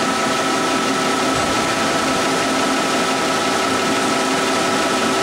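2006 DMG Gildemeister NEF600 CNC lathe dry-running a program: a steady machine hum with a constant high whine and no cutting.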